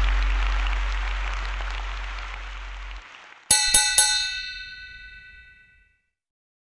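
Edited-in sound effects: the tail of a deep cinematic boom with a hissing whoosh, fading out over about three seconds, then three quick bright chime hits about three and a half seconds in that ring and fade away.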